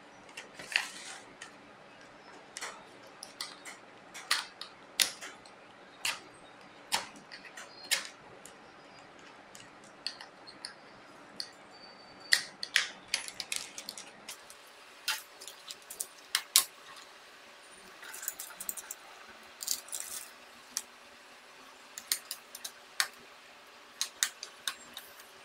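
Plastic display bezel of a Dell Latitude E6410 being pried off the screen assembly by hand: many irregular sharp clicks and snaps as its clips let go, with handling taps on the panel and frame.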